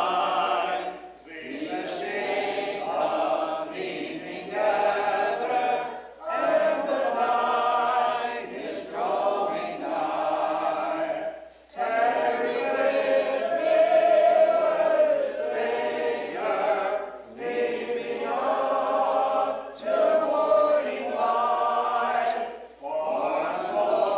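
Congregation singing a hymn together, unaccompanied: many voices in sung lines, with short breaks for breath between lines every five or six seconds.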